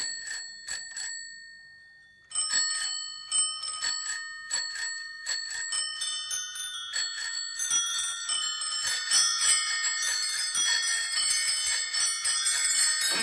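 Bicycle bells ringing on a music track: a few rings at the start, a near-quiet gap of about two seconds, then many bells ringing over one another, growing denser toward the end.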